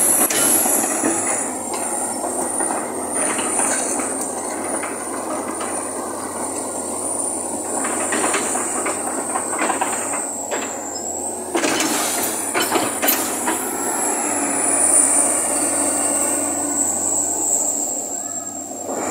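Komatsu PC200 hydraulic excavator running and moving on its steel crawler tracks: diesel engine and hydraulics working steadily, with track links clanking and squealing. A high whine wavers in pitch throughout, and a few sharp clanks stand out around the middle.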